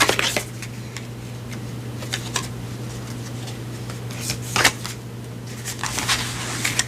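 Deck of oracle cards being shuffled by hand: several short riffles and slides, busiest near the end, over a steady low hum.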